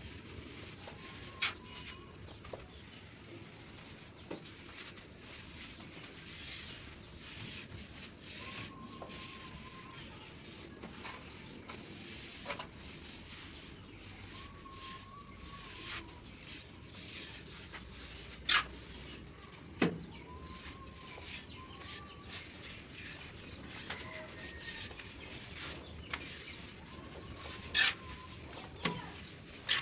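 A handful of sharp, separate taps or knocks a few seconds apart, over a low steady hiss, with short faint bird calls every few seconds.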